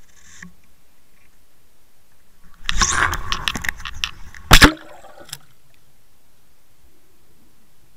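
Water splashing and rushing over a small action camera's housing as it breaks through the surface about two and a half seconds in, with a clatter of sharp clicks for about a second and a half. A single loud slap follows a little later as the camera hits the water again, then a few faint clicks.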